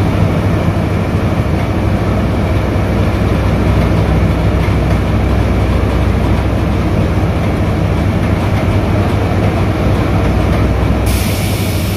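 Heavy diesel engine of a Cometto self-propelled modular transporter running steadily under the load of a box-girder launcher crane, a deep continuous rumble. About eleven seconds in a loud hiss starts suddenly over it.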